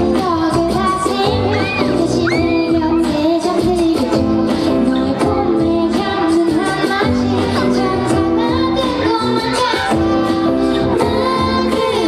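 A woman singing a Korean pop song live into a handheld microphone over full band backing.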